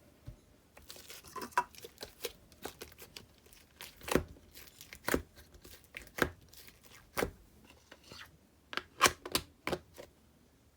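Slime being handled: irregular sharp crackling pops as it is pressed, folded and stretched, with a quick cluster of pops near the end.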